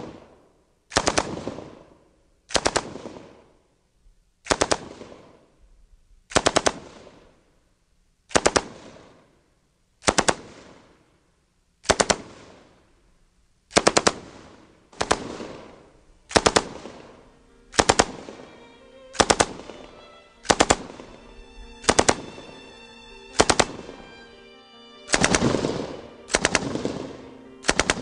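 M16A2-based 5.56 mm light machine gun firing short bursts of a few rounds each, about every one and a half to two seconds, with one longer burst near the end. String music comes in underneath during the second half.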